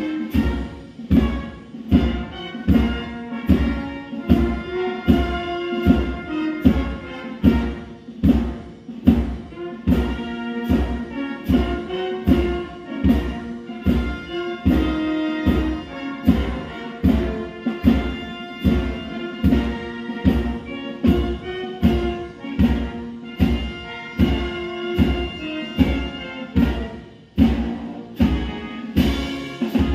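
Military band or orchestra playing a march, brass over a steady bass drum beat of about three strokes every two seconds.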